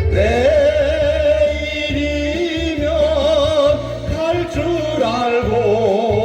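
Live singing over an accompaniment track: a long held note wavering with vibrato, over a steady bass beat.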